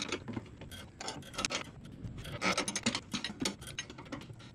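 Metal wrench turning the nut on a mower deck's threaded leveling rod: a run of irregular metallic clicks and taps as the wrench is worked and repositioned on the nut.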